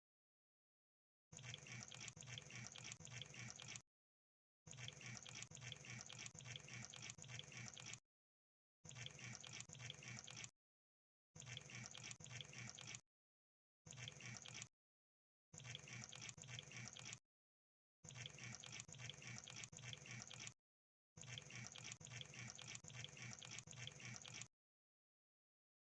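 Crab sound effect: quiet bursts of rapid, wet-sounding clicking and crackling, each lasting one to four seconds, cut apart by short gaps of dead silence about nine times.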